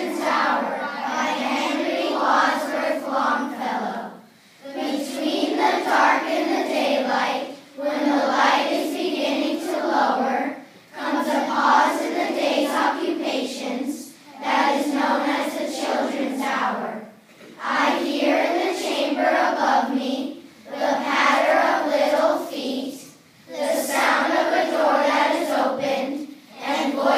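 A large group of children reciting a poem together in a sing-song unison, line by line, each line about three seconds long with a short breath pause between lines.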